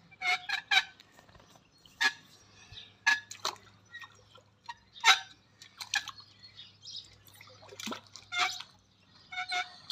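Pool water splashing and dripping in short, irregular splashes as a person steps down a ladder into the pool.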